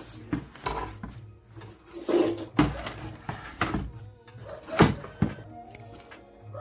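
A series of irregular knocks and clatters, the loudest just under five seconds in, over a steady low hum.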